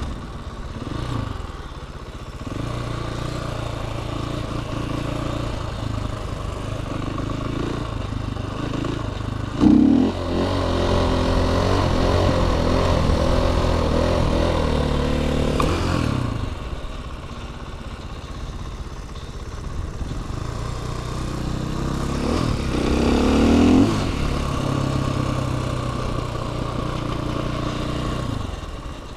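Dirt bike engine riding along. About ten seconds in it revs up sharply and holds high revs for about six seconds while the bike is up on a wheelie, then eases off. It climbs to another sharp rev a little past two-thirds of the way through.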